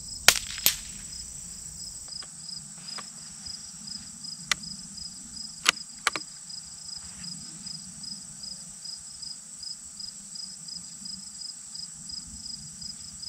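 Evening insect chorus: a steady high trill with an evenly repeating chirp about three times a second. A few sharp clicks break in, the loudest just after the start and more around the middle.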